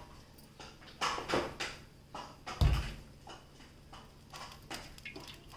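Scattered light clicks and knocks of a plastic oil bottle and an aluminium kadai being handled while oil is poured into the empty pan, with one dull thump about two and a half seconds in.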